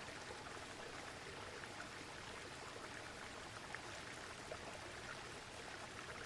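Waterfall ambience: a steady, quiet rush of falling water with fine splashing throughout.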